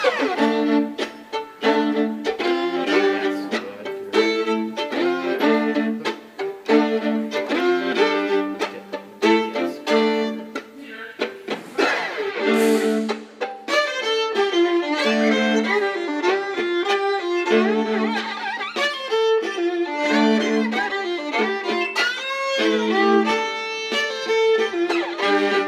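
Background music: a fast-moving fiddle tune over a string accompaniment.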